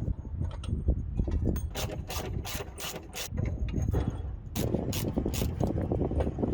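Hand tool working on a car's rear axle: quick, regular rasping clicks about four a second, pausing briefly in the middle.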